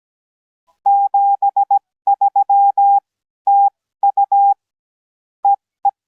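Morse code sent from a software Morse keyer: a single steady tone keyed into short dits and longer dahs in several groups with pauses between them, ending with two short beeps. It is heard as the received audio of a Zoom call.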